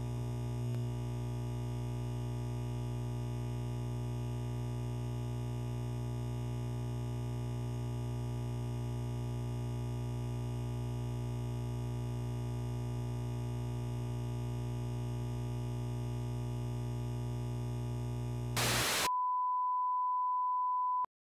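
A steady low electrical hum with many overtones, cut off about 18 seconds in by a brief loud burst of static, then a steady high pure beep: the 1 kHz line-up tone that goes with a television test card.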